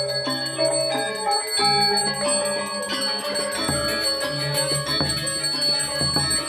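Balinese gamelan playing: many bronze metallophones ring in dense overlapping notes over sustained low gong tones.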